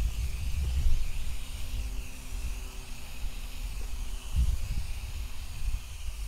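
Garden hose jet spraying water onto freshly sown bare soil: a steady hiss, over a low uneven rumble.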